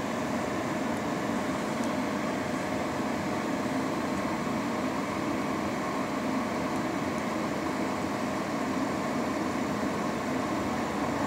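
A steady, even droning noise with a faint constant hum, unchanging throughout.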